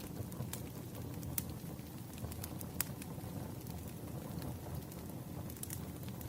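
Firewood burning, crackling with a few scattered sharp pops over a low steady rumble of the flames.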